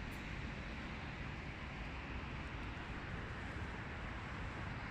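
Steady seaside outdoor background noise: an even hiss with a low, flickering rumble and no distinct events.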